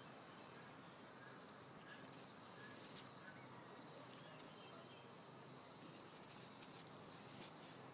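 Near silence: a faint outdoor background with a few soft clicks and rustles, and faint short high chirps.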